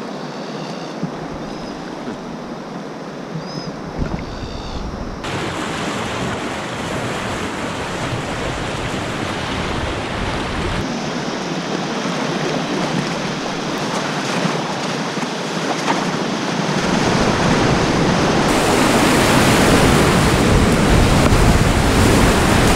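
Rushing river water heard from an inflatable whitewater kayak. The rush changes abruptly a few times and grows louder toward the end as the boat reaches a foaming rapid. A few faint high chirps sound in the first few seconds.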